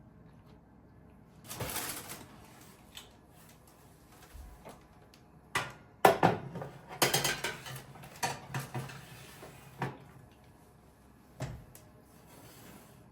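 Kitchen handling sounds. A brief rustle comes first, then a string of knocks and clatters of dishes and utensils being set down and moved, loudest about six seconds in.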